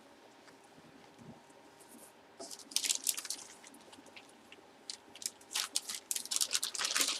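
Plastic packaging rustling and crinkling as it is handled, in two short bursts of crackly rustles about halfway through and near the end.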